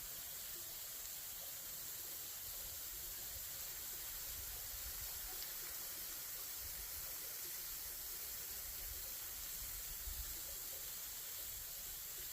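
Faint, steady hiss of quiet outdoor ambience, even throughout with no distinct events.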